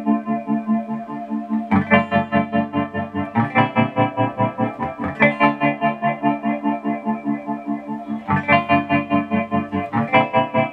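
Electric guitar chords played through delay, tremolo and an Electro-Harmonix Small Clone chorus, giving a spacey, shimmering sound. A new chord is struck about every one and a half to two seconds, and the tremolo makes the sound pulse quickly and evenly.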